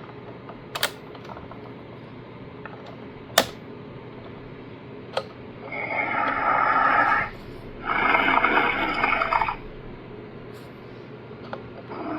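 Sharp clicks from a Haslab Ghost Trap replica, three in the first five seconds. Then two buzzing electronic sound-effect bursts from its speaker, about a second and a half each, with steady tones running through them, around six and eight seconds in.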